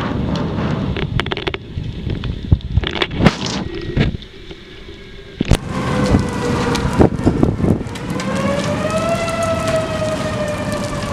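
Heavy rain with several sharp knocks in the first few seconds; the rain dips briefly, then returns. In the second half an outdoor tornado warning siren rises into a wail that then slowly falls.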